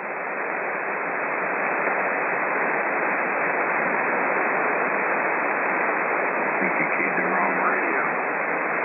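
Shortwave receiver hiss on the 40-metre amateur band at 7.200 MHz: steady band noise in a gap between transmissions. It grows louder over the first two seconds, and a faint voice shows under it briefly about seven seconds in.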